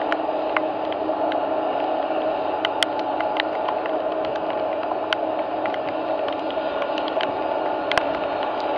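Boeing 747-400 freighter's four jet engines running at idle as it holds on the runway: a steady hum with a low steady tone under it, and scattered sharp ticks.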